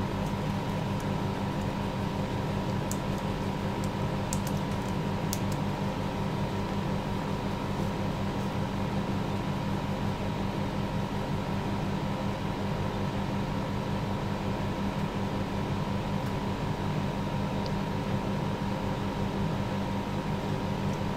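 Steady machine hum with a constant tone, with a few faint light clicks a few seconds in as small parts and pliers are handled.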